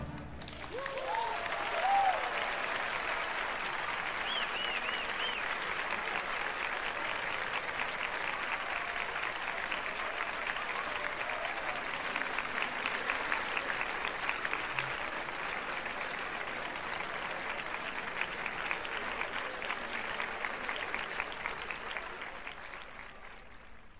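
Large crowd applauding in a town square, with a few shouts in the first few seconds; the clapping fades near the end.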